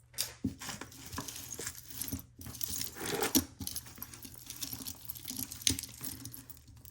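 Pile of costume jewelry being handled and sorted: small metal and plastic pieces clinking and rustling irregularly, with scattered sharp clicks.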